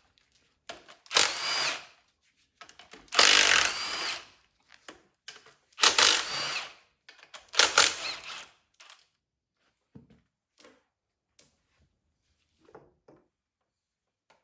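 A handheld power gun spinning bolts out of a TH400 transmission's tail housing in four bursts of about a second each, its whine rising in pitch within each burst. A few light clicks and knocks follow near the end.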